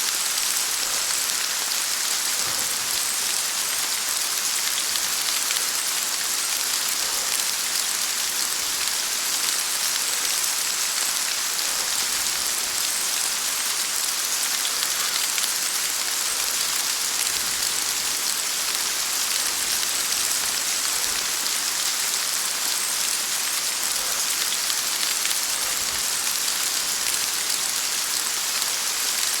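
Heavy rain falling steadily, a dense hiss of drops hitting a surface with fine pattering; no thunder stands out.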